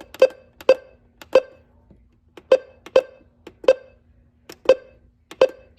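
Weather radio beeping: a run of short, sharp beeps at uneven intervals, roughly two a second, over a faint steady hum.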